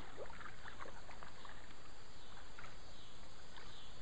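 Kayak paddling on flat water: paddle blades dipping and dripping, with small scattered splashes over a steady low background rumble.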